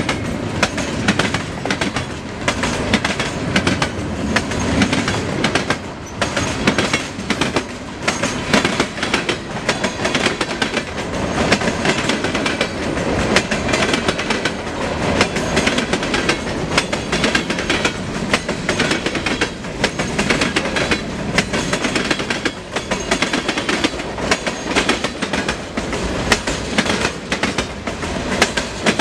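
Mixed freight train cars rolling past close by: steel wheels clickety-clacking over the rail joints in a steady stream of knocks and rattles over a continuous rumble.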